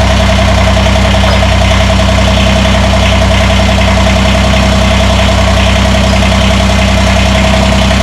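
Kubota BX2380 compact tractor's three-cylinder diesel engine running steadily, with a steady whine above it.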